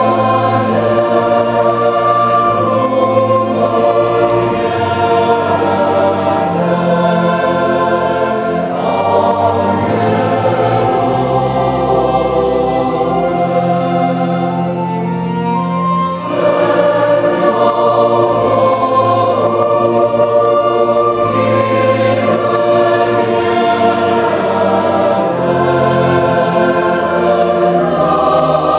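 Mixed choir of men's and women's voices singing in sustained chords, accompanied by a small string ensemble of violins, cello and double bass, with a short break between phrases a little past halfway.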